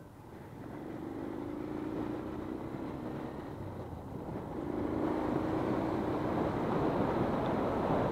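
Honda CB125 motorcycle engine under way and pulling harder, its note dropping away briefly about four seconds in before picking up again, with wind rushing over the microphone growing louder toward the end.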